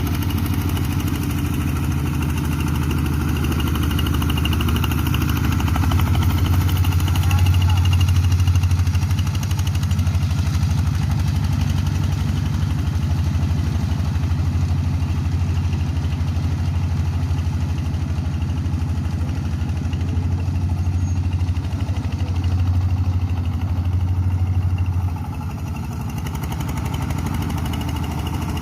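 Small engine of a boat-type paddy-field plough tractor running steadily. It swells a little several seconds in and drops slightly in level near the end.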